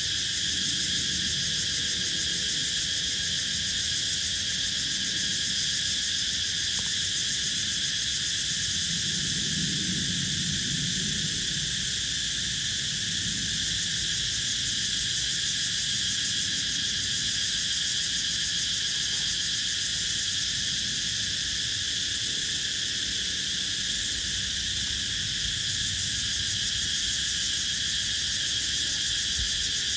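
Steady, unbroken chorus of insects: a dense, high-pitched shrill drone that does not let up, with a faint low rumble beneath it.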